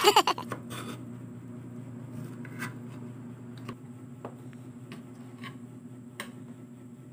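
Faint eating sounds from a toddler: scattered soft clicks and smacks as he takes cubes of dragon fruit off a plastic fork and chews, over a steady low room hum. One sharper click comes about a second in.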